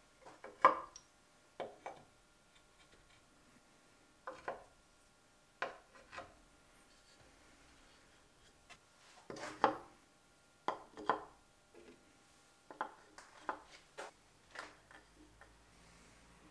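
Steel drill bits set by hand into the holes of a plywood storage rack, giving irregular sharp clinks of metal on wood and on neighbouring bits, in small clusters, each loud one with a short metallic ring.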